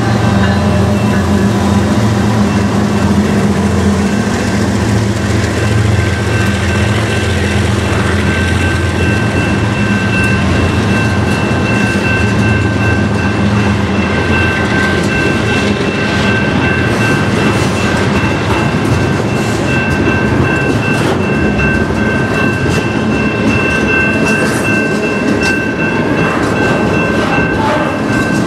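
GE ES44-series diesel-electric locomotives passing close by, their engine drone strong for about the first half and then fading out. Double-stack container well cars follow, rolling by with wheel clatter and knocks. A steady high-pitched ringing tone is heard throughout.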